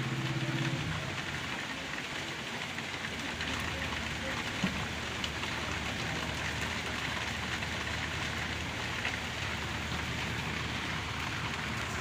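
A steady hiss of background noise, with a low steady hum that comes in about three seconds in and a couple of faint clicks.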